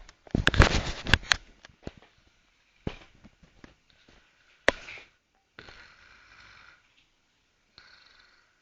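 A sleeping man snoring, with irregular noisy breaths. There is a louder burst of rasping and clicks in the first second or so, scattered single clicks, and a longer breath about two-thirds of the way through.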